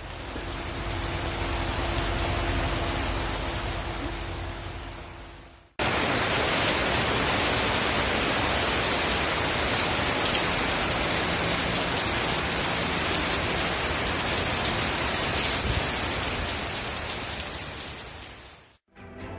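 Heavy rain pouring steadily onto wet pavement. About six seconds in it cuts to a second, louder recording of the downpour, which fades out near the end.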